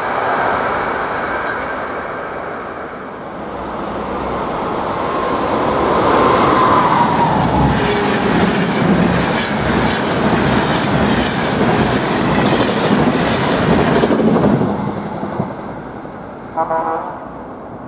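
Passenger trains rushing past at speed on a main line. The tail of one express clears first, then a RegioJet express's coaches go by with loud wheel-and-rail noise, loudest in the middle and fading away near the end. A brief tone sounds near the end.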